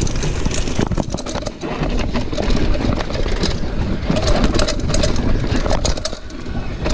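Mountain bike descending a rough dirt forest singletrack: a steady low wind rumble on the microphone, with frequent rattles and knocks from the bike and its mount as it runs over roots and rocks.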